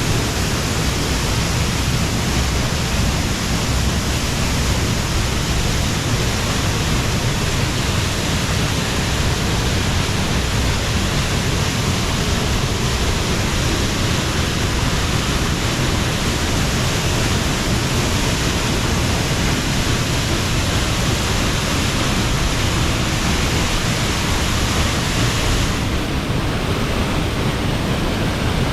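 Steady, loud rush of falling water from a waterfall, a dense hiss with no breaks; its high end turns duller a couple of seconds before the end.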